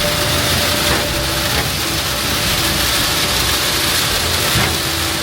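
Ready-mix concrete truck running, with a loud steady rushing noise over a low engine rumble.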